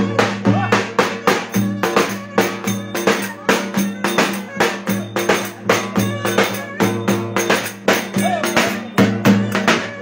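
Davul, a large Turkish double-headed bass drum, beaten in a fast steady rhythm, with sustained melody notes played over the strokes.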